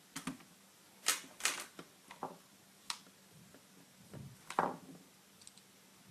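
Sharp plastic clicks and knocks from handling the reassembled Acer Aspire One netbook, about six separate strokes spread unevenly, the loudest a little over a second in and again near the end.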